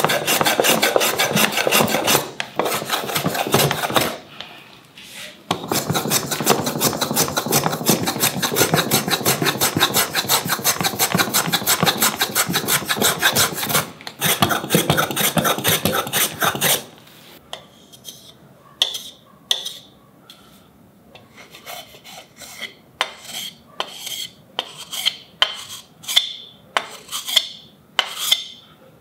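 Fast, repeated strokes of a small hand tool cutting and scraping beech wood by hand, a dense run of strokes that pauses briefly about four seconds in and stops around seventeen seconds in, followed by slower, separate strokes.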